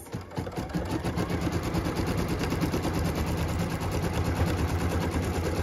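Embroidery machine stitching a tack-down line through layered quilting fabric in the hoop: a fast, even run of needle strokes over the motor's steady hum.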